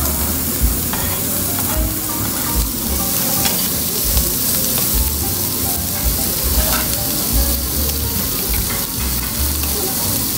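Slices of meat and tofu sizzling steadily on a tabletop Korean barbecue grill, with scattered small clicks.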